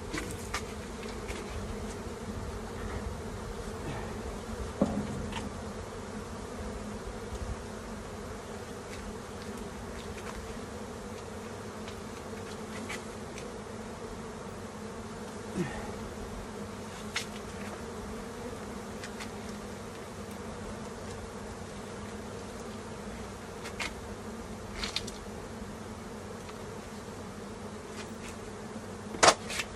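Many honeybees buzzing around an opened hive, a steady dense hum, with a few short sharp knocks, the loudest near the end.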